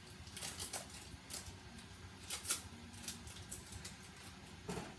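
Paper butter wrapper crinkling in short, crisp rustles as a stick of butter is peeled open by hand.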